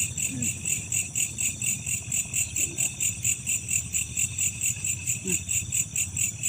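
Insects chirping in a steady, rapid pulse of high notes, several beats a second, without a break.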